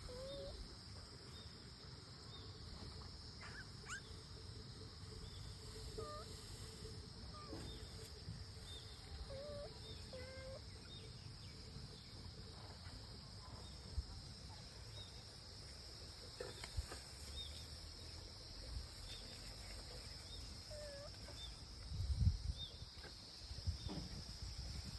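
Steady high-pitched insect drone, like crickets, with scattered short chirps. A few low thumps come together about 22 seconds in.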